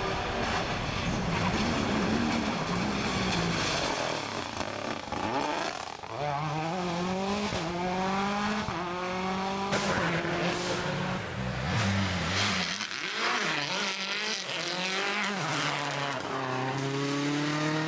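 Rally car engine at full throttle, its note climbing in pitch and dropping back again and again as it shifts up through the gears.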